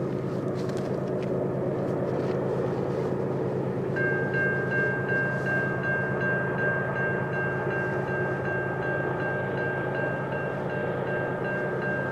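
Diesel freight locomotives running with a steady low drone, and a bell starting to ring steadily about four seconds in, pulsing a few times a second.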